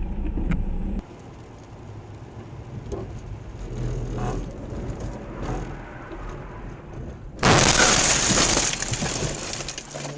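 Dashcam car's cabin road noise on a wet road, then a sudden loud crash about seven and a half seconds in, as a vehicle collision with breaking and crunching that fades over a couple of seconds.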